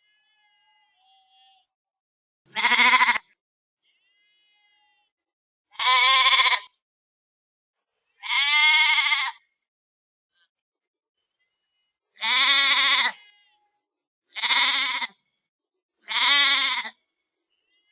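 Sheep bleating: six separate quavering baas, each about a second long, spaced a second or two apart.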